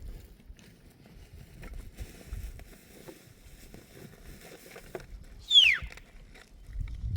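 A single loud whistle that falls steeply in pitch about five and a half seconds in, over a low rumble of wind.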